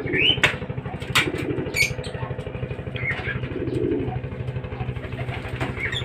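Lovebirds giving several short, high chirps and sharp calls, the loudest in the first two seconds, over the steady rumble of an idling engine.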